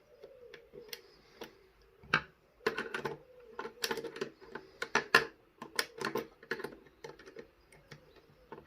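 Levers and small metal parts of a Chubb 3u114e five-lever lock clicking and clinking irregularly as they are lifted out of the lock case by hand, with the busiest run of clicks in the middle.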